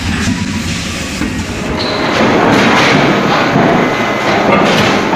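Forging line machinery in a forge shop: a dense, steady metallic clatter and rumble that grows louder about two seconds in, with a few sharp knocks near the end.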